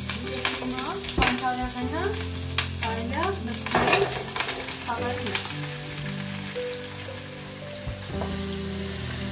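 Ginger and garlic sizzling in hot oil in a deep pan, stirred constantly so they don't burn, with a utensil clicking and scraping against the pan now and then.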